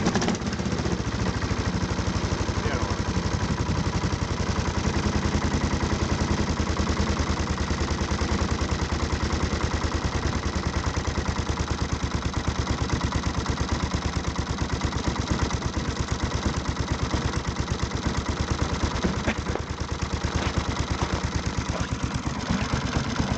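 Buran snowmobile's two-stroke engine idling steadily with an even chatter, just started from cold and left running to warm up.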